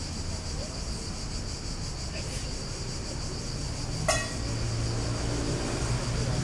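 Steady, high-pitched insect chorus in dry summer grass, with a fine, even pulsing. A brief sharp sound cuts in about four seconds in, and a low hum comes in soon after.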